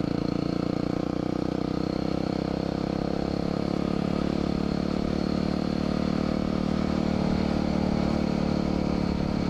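Engine of a 2010 Yamaha WR250R, a single-cylinder four-stroke, running at a steady cruising speed, heard from the rider's helmet camera.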